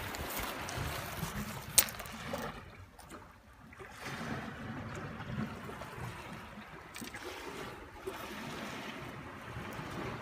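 Wind and water noise on a rocky sea shore, a steady rushing haze that dips briefly about three seconds in, with a sharp click about two seconds in and a few fainter ticks later.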